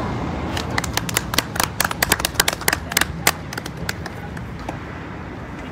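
A small crowd applauding: scattered, uneven claps from a few people that die away after about four seconds.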